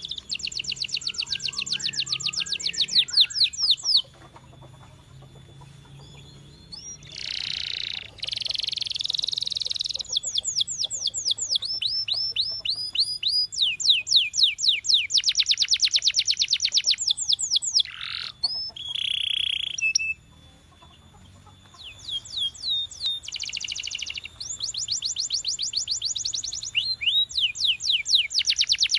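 Canary singing: phrases of fast trills, each a rapid run of repeated sweeping notes, with a few longer buzzy held notes between them and two short pauses.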